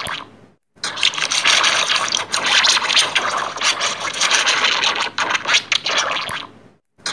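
Heavily distorted, effects-processed logo audio: a dense, harsh crackling and scratching noise. It drops out about half a second in, comes back, and fades away just before the end, when the loop starts over.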